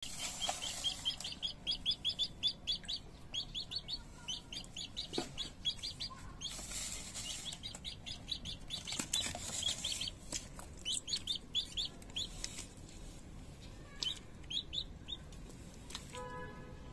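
Domestic chicken chick peeping: runs of short, high peeps, several a second, coming in bursts and thinning out near the end.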